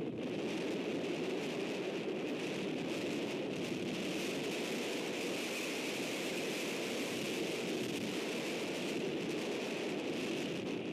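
Heavy wind blowing steadily, a constant rushing noise with no breaks.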